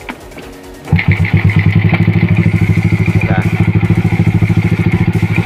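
Yamaha Crypton's single-cylinder four-stroke engine catching suddenly about a second in, then running at a steady, even idle.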